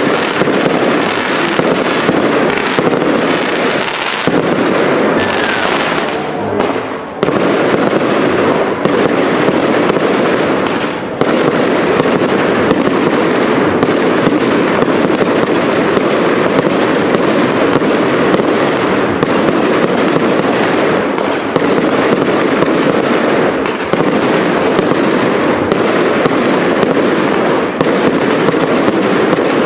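Professional aerial fireworks display: a dense, continuous barrage of bangs and crackling from shells and cakes bursting overhead, easing briefly about seven seconds in.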